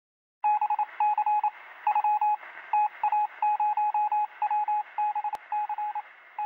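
Morse code sent by radio: a single high tone keyed on and off in short dots and longer dashes over a steady radio hiss, starting about half a second in.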